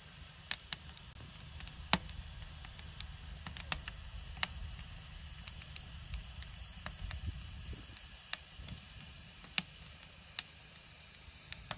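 Firewood burning in an ondol firebox, crackling with scattered sharp pops at irregular intervals over a low, steady rumble.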